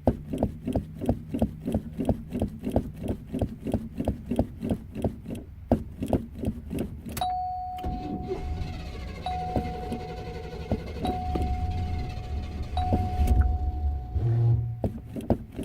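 Car engine cranking on the starter without catching, turning over at about three compression pulses a second for some seven seconds: a hard start. Then the cranking stops and a steady warning chime sounds, broken by short gaps, over a low rumble.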